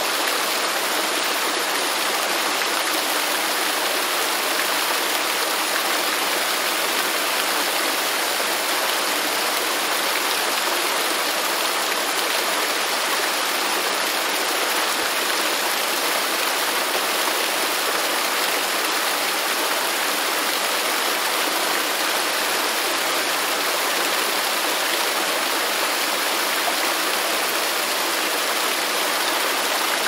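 Rushing river water, a steady even hiss that does not change.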